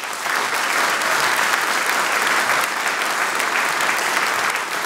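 Theatre audience applauding steadily, a dense even clapping that starts suddenly.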